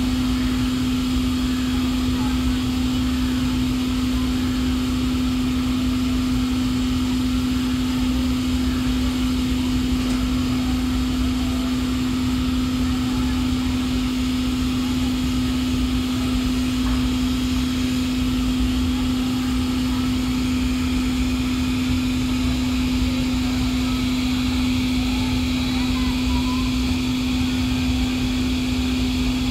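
A steady machine hum holding one constant pitch over a low rumble, unchanging throughout.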